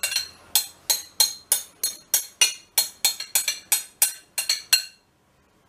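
Rapid sharp clinks of a utensil tapping a white yogurt bowl, about three a second with a short ring after each, knocking the last garlic yogurt out. The tapping stops about five seconds in.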